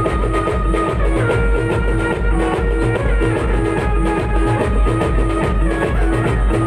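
Live band dance music: a Roland XPS-10 keyboard playing a melody over a steady, heavy drum beat.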